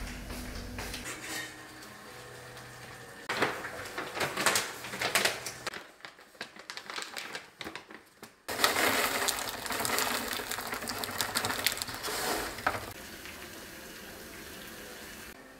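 Kitchen clatter, then roasted corn kernels poured from a plastic bag into a stainless-steel pot: a sudden rattling rush lasting about four seconds. Near the end it gives way to a steady soft sound, the pot of corn tea at a rolling boil.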